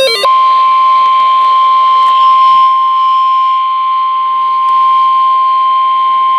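NOAA Weather Radio 1050 Hz warning alarm tone: one loud, steady single-pitch tone that signals a weather warning is about to be read. It starts right after a brief warbling burst of the digital SAME alert header at the very start.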